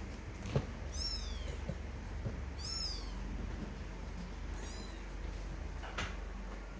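Tiny kittens mewing: three short, very high-pitched mews about two seconds apart, each rising and then falling, the last one fainter, over a low steady hum.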